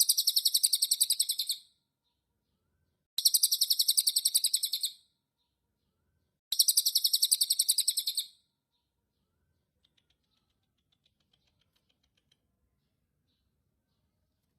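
A cililin songbird calling in three rapid, high-pitched trills, each under two seconds long and made of about ten even notes a second, with pauses of about a second and a half between them.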